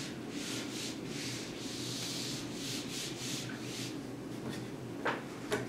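A whiteboard being wiped clean with quick back-and-forth strokes, a run of dry rubbing swishes. Near the end come two short knocks.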